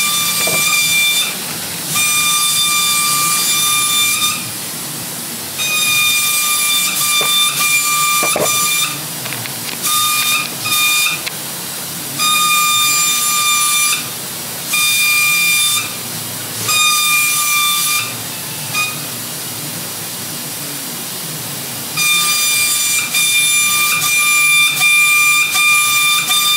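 Paint spray gun spraying in a series of passes, about eight bursts of half a second to four seconds each. Each burst is a whistling hiss of air and paint that starts and stops sharply with the trigger.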